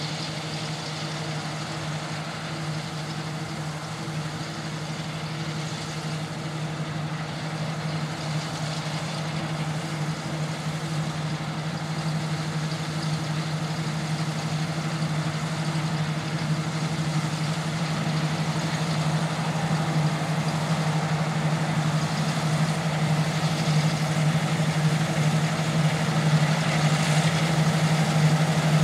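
Claas Lexion 460 combine harvester cutting and threshing wheat: a steady engine hum with a constant low drone and machinery noise, growing gradually louder as the combine comes closer.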